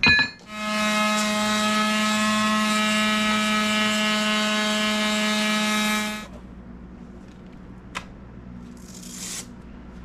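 A sharp clack, then a battery-powered mouse sander starts on a wooden axe handle. It runs with a steady electric hum and sanding hiss for about six seconds, then stops suddenly.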